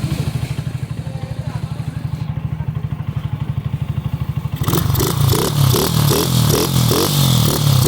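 AKT NKD 125's single-cylinder four-stroke engine running through an aftermarket full-system exhaust with a bullet-type muffler, idling with a fast, even exhaust beat. About five seconds in it is run up and gets suddenly louder, with a rhythmic pulsing beat.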